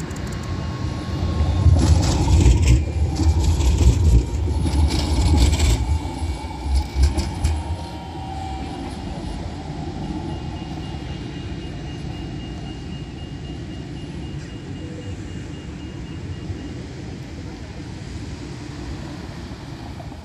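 Low-floor Alstom Citadis tram passing close by, a loud low rumble with a run of sharp clicks and rattles for about six seconds. After it has gone, a steady quieter hum of road traffic remains.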